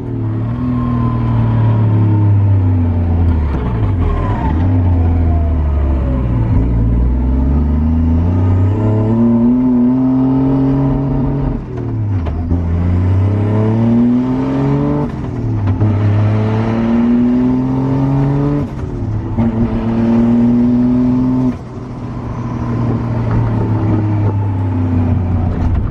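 Toyota 1JZ-GTE VVT-i turbocharged inline-six in a Silvia S15 pulling through the gears: the engine note climbs steadily in pitch, then drops sharply at each shift, about six times. The engine is running rich on its untuned map.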